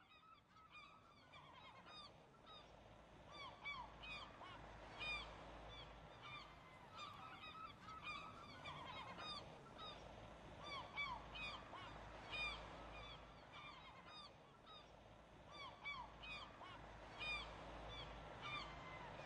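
A flock of birds calling faintly: many short, arched calls, overlapping and irregular, several close together at times.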